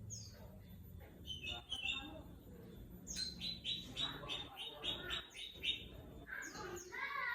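White-rumped shama (murai batu) singing a varied song of whistles and chirps. Midway it delivers a run of about ten quick repeated notes, about four a second, before more chirps and whistles near the end.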